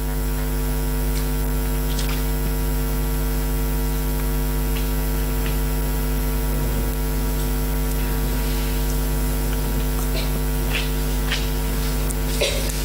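Steady electrical mains hum with a stack of buzzing overtones, loud and unbroken, with a few faint ticks over it.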